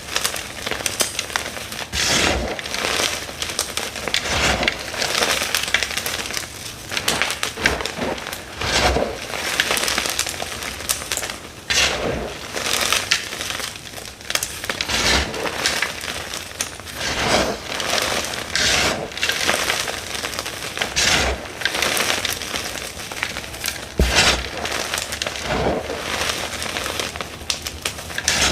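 Dyed gym chalk blocks crunching and crumbling in a steady run of dry crackles, broken by frequent louder irregular crunches.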